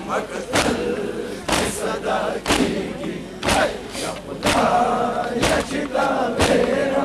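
Large crowd of men performing matam, beating their chests with their hands in unison, about one beat a second, with chanted mourning verses between the beats.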